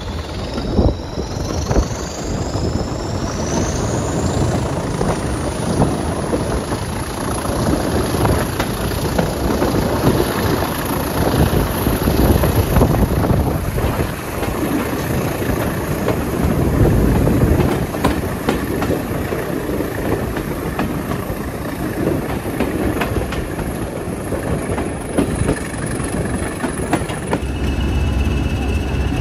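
A diesel-hauled heritage train heard from an open carriage window: the train runs along the track with the locomotive's engine working, and a whine rises over the first few seconds. Near the end it cuts to a Class 20 diesel locomotive idling with a steady whine.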